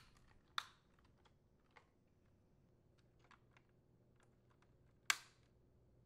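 Plastic wire retainers snapping into position on a Whirlpool dishwasher's main control board: two sharp clicks, the first about half a second in and the louder one about five seconds in, with a few faint ticks between.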